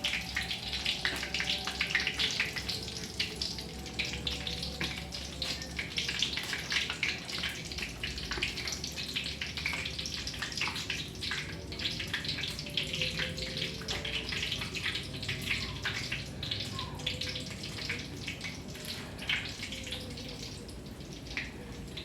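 Cooking oil sizzling and crackling steadily in a pan as food fries.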